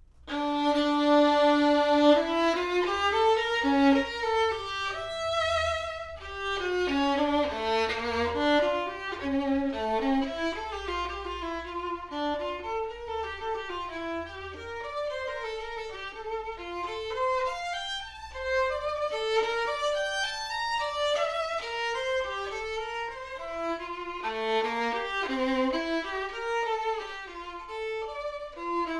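Music: a solo violin playing a melody of changing notes, cutting in suddenly after near silence.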